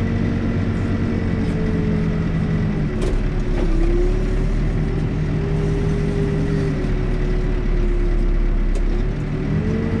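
Backhoe's diesel engine running steadily, its pitch dropping about three seconds in and rising again near the end, with a single sharp click as the pitch falls.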